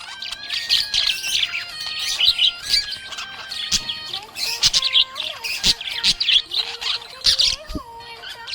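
Budgerigar chirping and warbling in a fast, continuous chatter of short high chirps and squawks.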